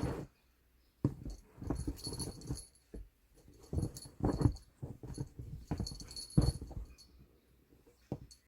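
A dog making sounds close to the microphone in irregular short bursts over several seconds.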